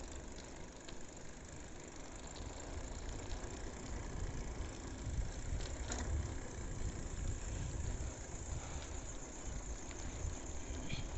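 Bicycle rolling along a concrete street: steady tyre and riding noise with low wind rumble on the microphone that grows stronger near the end, and a single click about six seconds in.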